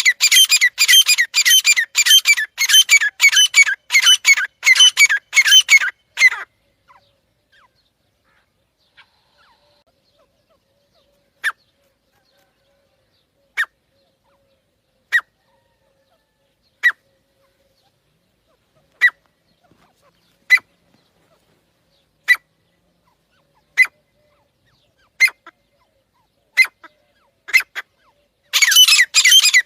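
Francolin (teetar) calling: a fast run of shrill, repeated calls that stops about six seconds in, then single sharp calls about every one and a half seconds, and the fast run starts again near the end.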